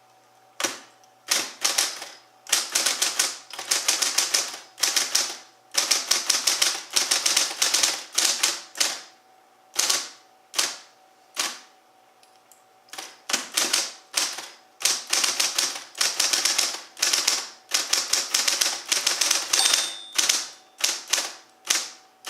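Smith Corona Coronet Super 12 electric typewriter typing a line: rapid runs of key strikes in bursts of a second or two, with short pauses between them, over the faint steady hum of its motor.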